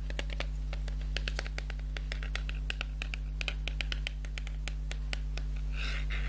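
Fingers and nails tapping and scratching on small canvas boards as they are handled, in quick runs of light taps.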